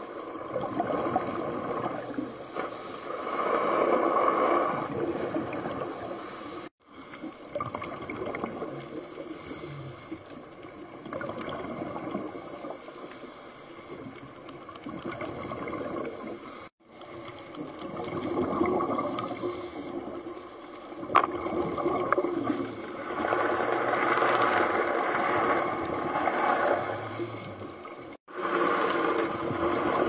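Underwater sound of scuba divers exhaling through their regulators: rushes of bubbles that swell and fade every few seconds. It drops out abruptly three times.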